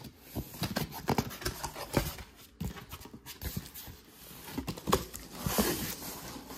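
Cardboard box being opened by hand: scattered taps and knocks as the lid tab is pulled and the cardboard flaps are handled, with a longer scraping rustle of cardboard flaps being folded back about five seconds in.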